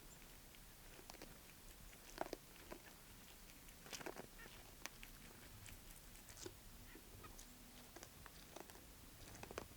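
Near silence with a few faint, scattered clicks and crunches.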